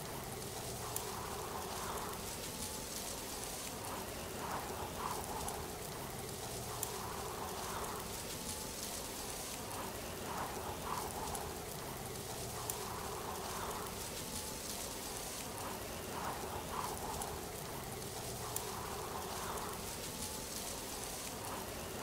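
Steady rushing hiss of falling water, like a waterfall or rain, with a fainter sound that rises and fades every few seconds.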